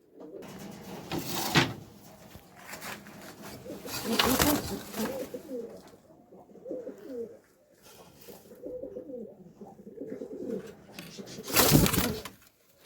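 Pigeons cooing, many low wavering coos overlapping, with three brief loud noisy bursts, the loudest near the end.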